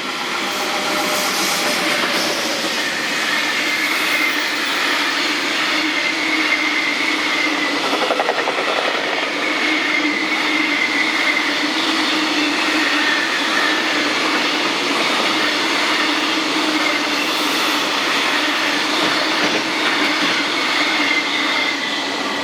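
Freight train passing at speed, a steady loud rumble of wagons and wheels over the rails with clickety-clack and a faint high whine.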